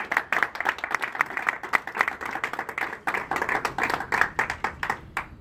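A small audience applauding, many pairs of hands clapping quickly and unevenly, dying away just before the end.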